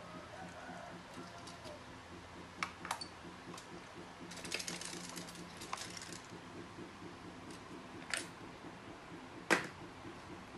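Scattered sharp clicks and knocks with a short burst of rattling clicks about four and a half seconds in, over a faint steady hum. The loudest click comes near the end.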